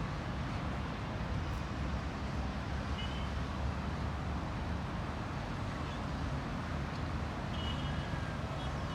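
Steady rumble of distant highway traffic in a city, with a couple of faint, brief high tones about three seconds in and again near the end.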